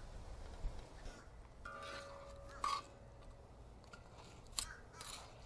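Metal tongs clicking and scraping against the steel discada as fried shrimp are picked out of the oil, with a few separate sharp clicks.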